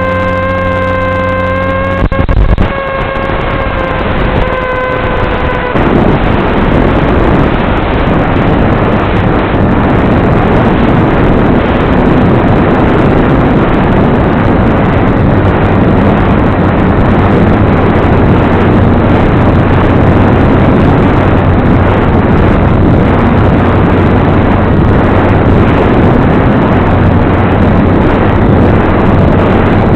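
Onboard audio from an FPV flying wing in flight: a steady, even-pitched motor and propeller whine with overtones, then from about six seconds in a loud, even rushing noise takes over, with a low hum underneath.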